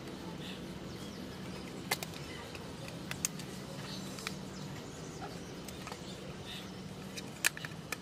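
A few sharp, light clicks and taps of a hard plastic washing-machine part being handled and turned over in the hands, over a steady low hum.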